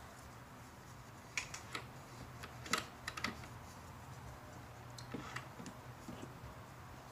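Faint, scattered light clicks and taps from a toothbrush and gloved hands scrubbing inside a car's aluminium throttle body, over a low steady hum.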